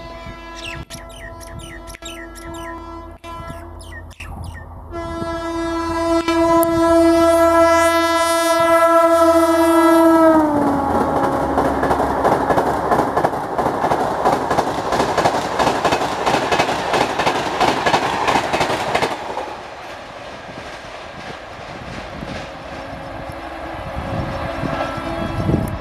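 Air horn of a WAP-7 electric locomotive sounding one long blast as the express approaches at about 130 km/h, its pitch dropping as the locomotive passes. The coaches then rush past with a steady roar and rhythmic wheel clatter over the rail joints, fading after several seconds.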